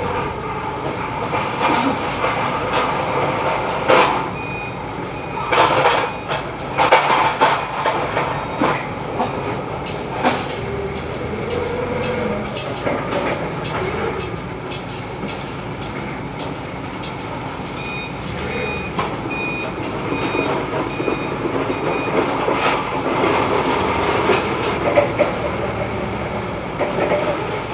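Forklift engine running as the truck manoeuvres, with its reversing alarm giving runs of short high beeps twice. Sharp clanks and knocks come in the first ten seconds or so.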